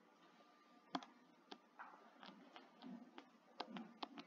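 Faint, irregular taps and clicks of a stylus writing on a tablet screen, with one sharper tap about a second in.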